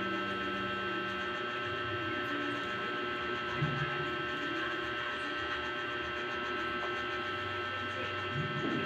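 A steady hum with several held tones throughout, and a lower drone that comes and goes.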